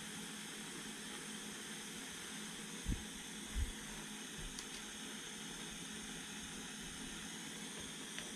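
Butane soldering iron (LEXIVON LX-770) burning with a steady hiss while it heats a thick copper wire splice. Two soft low bumps come about three seconds in.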